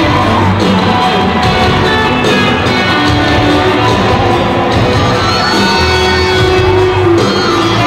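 Loud live pop-rock band music in an arena, with electric guitar, bass and drums, and crowd shouts mixed in, as heard from the audience.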